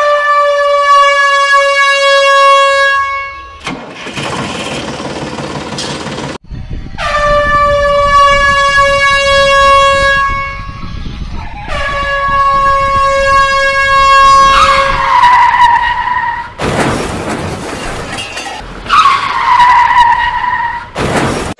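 A train horn sounding three long, steady blasts of about three seconds each, with a stretch of rushing, hissing noise after the first. Near the end come two shorter, lower, wavering horn tones, with another rush of noise between them.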